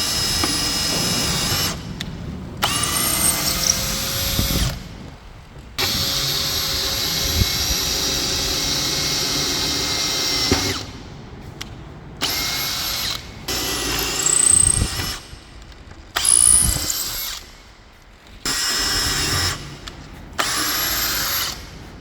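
Makita DHP484 18V brushless cordless hammer drill running in repeated trigger bursts, stopping and starting about eight times, with the motor whine rising in pitch as some bursts spin up.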